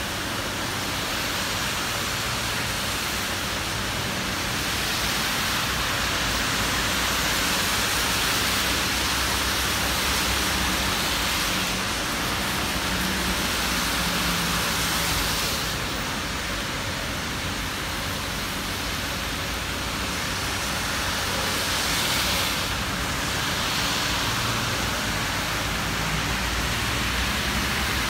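Steady hiss of rain, with cars driving past on the wet road and a low engine rumble beneath it.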